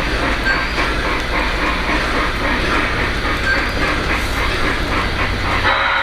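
O-gauge model train running along the track with a steady rumble and rattle. Its whistle starts to blow right at the end.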